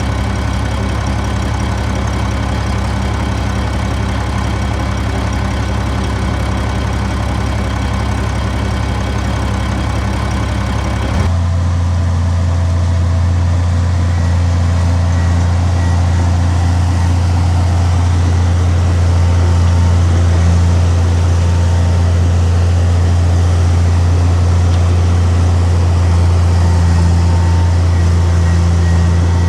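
Heavy earthmoving machine's diesel engine running steadily at a low drone. About a third of the way in, the sound changes abruptly to a deeper, steadier engine tone.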